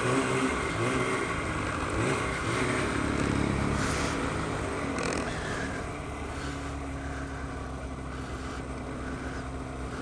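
Snowmobile engine running under throttle, the revs rising and falling as it climbs through snow, then easing off to a steadier, lower run about halfway through as the sled slows.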